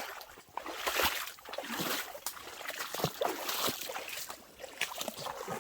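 Footsteps wading through shallow creek water: irregular sloshing and splashing steps.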